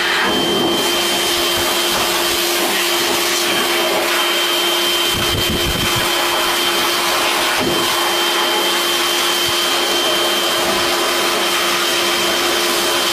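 Vacuum cleaner running steadily, its hose nozzle moving through a cat's fur, with a steady whine over the rush of air.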